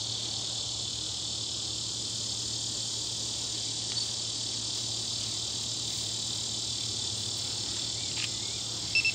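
Steady, high-pitched chorus of insects. A brief, louder chirp comes near the end.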